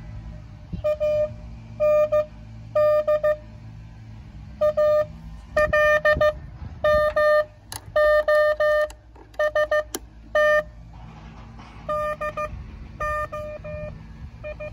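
Morse code from an amateur station on the 10-metre band, received by a homebrew uBITX transceiver in CW mode through its small built-in speaker: a note of about 600 Hz keyed on and off in dots and dashes, narrowed by an added audio CW filter, over a low steady rumble.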